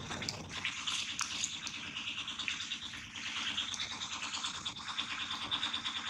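Steady high-pitched buzzing chorus of insects in the trees, with a few faint clicks; no monkey calls.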